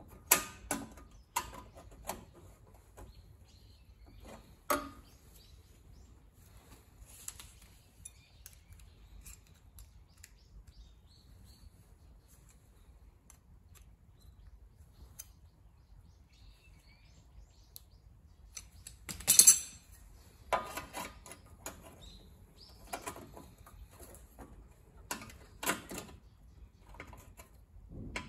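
Irregular metallic clinks and knocks of tools and sheet metal being handled during bodywork, with one louder clatter about two-thirds of the way through.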